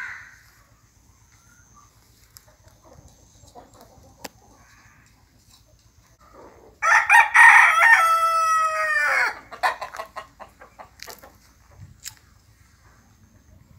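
A desi (native) rooster crowing once, a loud call of about two and a half seconds that falls in pitch at the end.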